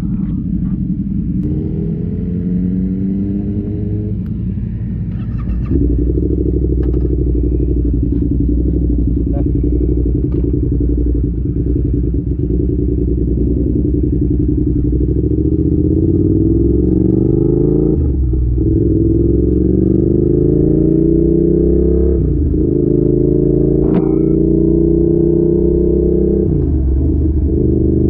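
Yamaha YZF R7's parallel-twin engine running through an Arrow exhaust under way, its pitch climbing as it pulls and dropping back abruptly at each gear change, three times in the second half.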